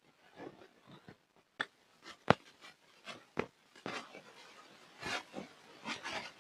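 Hard, gritty black mud crumbling and breaking apart: irregular dry crunches and crackles with a few sharp cracks, the loudest a little over two seconds in, the crunching getting busier in the second half.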